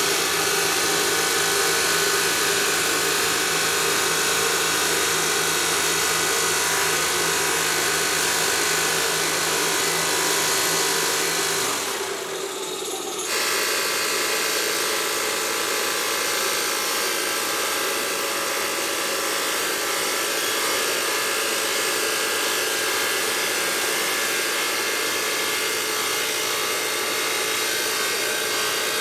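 Stone-working machinery in a marble factory running steadily with a loud, dense grinding noise. The sound changes abruptly about twelve seconds in, then carries on much the same.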